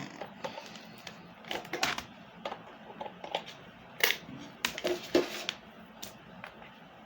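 Laptop charger and power cord being handled and fitted together, giving irregular plastic clicks and rattles, with the sharpest clicks about four and five seconds in.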